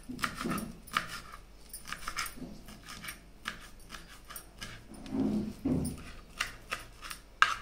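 Knife chopping fresh mint leaves on a cutting board: a run of irregular light taps, several a second, with a sharper knock near the end.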